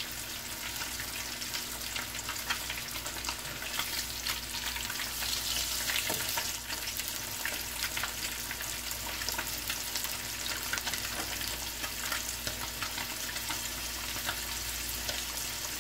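Breaded chicken breast and basa fish fillets shallow-frying in hot oil in two pans: a steady sizzle with dense crackling pops, briefly louder about five seconds in.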